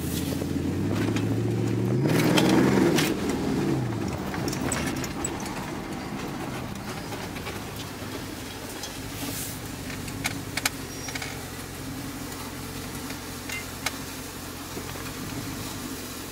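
2013 Dodge Charger SRT8's 6.4-litre HEMI V8, heard from inside the cabin while driving. The revs climb and fall back about two seconds in, then the engine settles into a steady low drone. A few light clicks come later.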